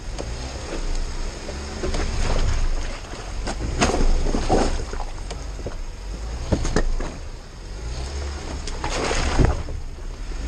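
Jeep Wrangler crawling over creek-bed rocks: a steady low engine rumble, with the tyres crunching over stone and several sharp knocks, the loudest around four and nine seconds in.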